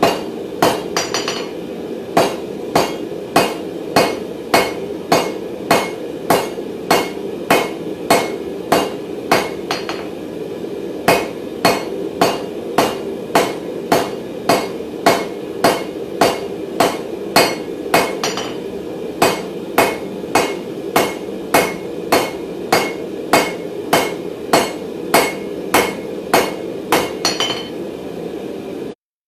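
Hand hammer striking hot round mild steel bar on an anvil, a steady rhythm of about two blows a second with a few short pauses.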